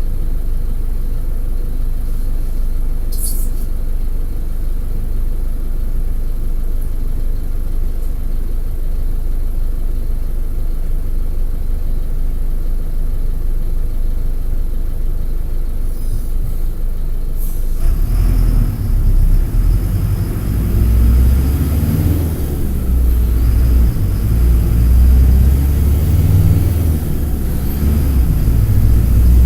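Mercedes-Benz OF-1722M articulated bus's OM-924 LA four-cylinder turbo diesel idling with a low, steady rumble. About two-thirds through there is a brief hiss of air, and the engine grows louder and uneven as it pulls the bus away, still rising at the end.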